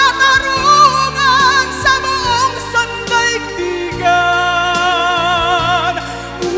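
A woman singing a slow Filipino ballad with wide vibrato over sustained accompaniment, then holding one long note from about four seconds in.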